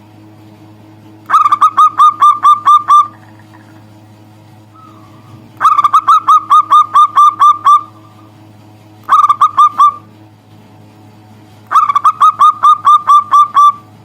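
Zebra dove (perkutut) calling in four loud bursts. Each burst is a quick run of short, down-slurred notes, about five a second, and lasts one to two seconds.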